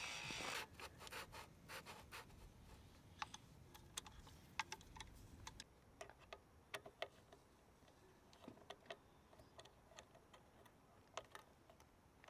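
Faint, irregular small clicks and taps of tools and parts during mountain bike assembly, after a brief rustle at the start.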